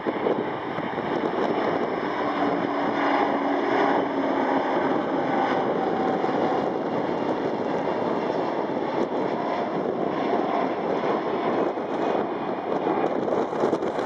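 Twin jet engines of an Airbus A300F freighter on final approach with gear down, a loud steady rush of jet noise with a faint whine as it flies low past.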